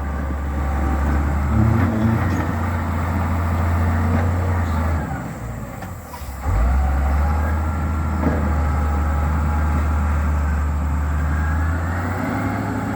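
Hidromek motor grader's diesel engine running with a steady low drone. The drone sags about five seconds in and comes back abruptly about a second and a half later.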